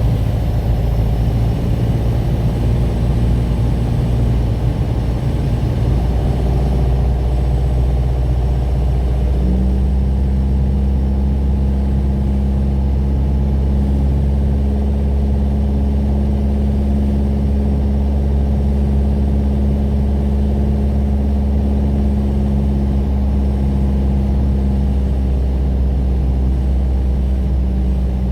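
Piper PA-28 Warrior's piston engine and propeller running with a steady drone; its note changes about six seconds in and again about ten seconds in.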